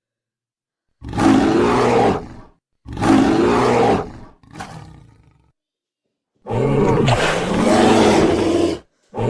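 Loud roaring: three long roars of one and a half to two seconds each, with a fading growl after the second and a fourth roar starting near the end, each broken off by sudden silence.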